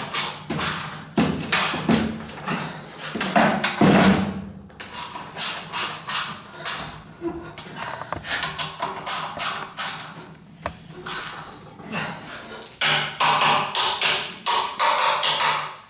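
A busy run of knocks, clicks and clatters of hand tools and metal and plastic parts being handled, with short ratchet-like rattles.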